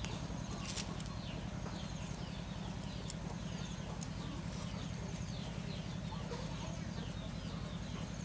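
Birds chirping over and over in the background above a steady low hum, with a few faint sharp clicks.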